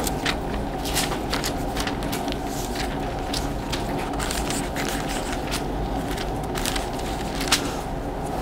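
Paper rustling as Bible pages are leafed through, a string of short irregular crackles and light scrapes over a steady background hum.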